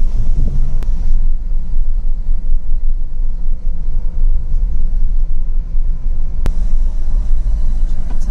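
Steady low rumble of a moving vehicle, road and engine noise, with two sharp clicks, one about a second in and one near six and a half seconds.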